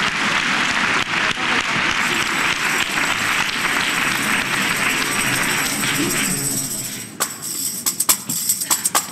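Audience applause that dies away about six and a half seconds in, followed by a few sharp, scattered tambourine shakes and strikes.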